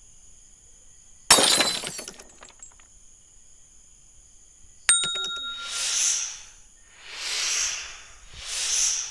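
Added sound effects of a like-and-subscribe end-screen animation: a short noisy burst about a second in, a sharp click with a brief ringing about five seconds in, then three whooshes, each swelling and fading.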